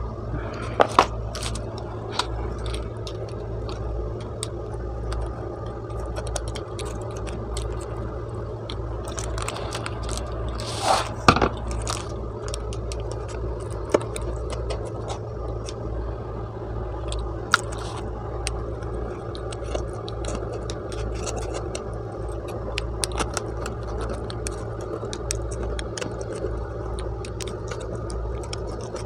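A knife and a pizza-cutter wheel scraping as they cut through a cheese pizza, with a few sharp clicks and knocks, over a steady low hum.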